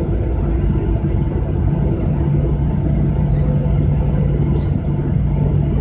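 Jet airliner cabin noise as the plane moves on the ground: a steady, loud rumble of the engines and airflow with a low steady hum. A few faint clicks sound over it.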